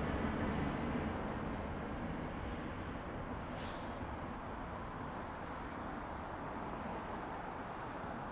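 Jet engine noise of a Boeing 777-200ER climbing away after takeoff: a steady, even rumble that slowly fades as the airliner recedes. A short high hiss comes a little over three seconds in.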